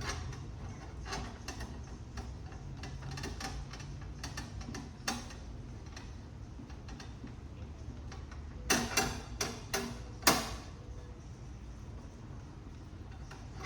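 Small metal clicks and taps as the ratchet is worked over with the electroplating brush on its grounded plate, with a louder run of clicks about nine to ten and a half seconds in. A steady low hum runs underneath.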